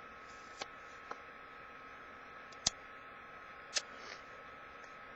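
A handful of light, sharp clicks and taps from hands handling a box with paper strips inside, spread over a few seconds, the loudest about two and a half seconds in, over a steady faint hiss and hum.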